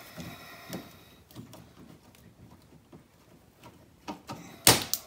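A stiff plastic push-pin clip in a car's fender liner being pried at with a trim-clip tool: faint scraping and small clicks, then one sharp snap near the end.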